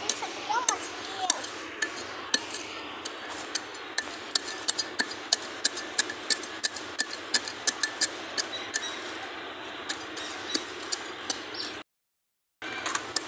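Small wooden-handled, metal-bladed digging tool chopping into dry, stony soil: sharp clinks and scrapes as the blade strikes grit and pebbles, a few a second and irregular. The sound drops out briefly near the end.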